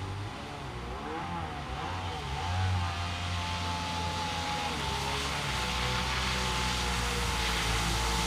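Stand-up jet ski engine running, its pitch swinging up and down over the first few seconds and then holding steadier. From about halfway through, a low rumble and the hiss of water and spray grow louder as the craft comes closer.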